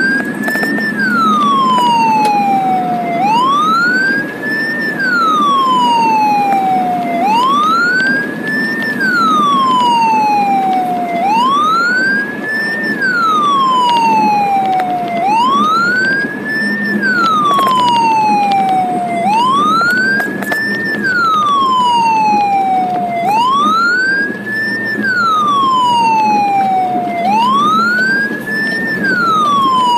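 Ambulance siren wailing: each cycle rises quickly for about a second and then falls more slowly, repeating about every four seconds. A steady low rumble from the moving vehicle runs beneath it.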